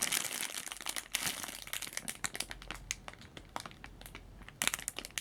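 Crinkling and rustling handling noise as a squishy toy is picked up and turned over, with a denser patch of crackles near the end.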